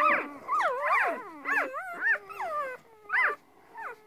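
A litter of one-day-old puppies whining and squealing, several high cries at once that swoop up and down in pitch; they thin out to a few short cries with gaps after about two seconds. The puppies are crying for their mother, who has been taken out of the box.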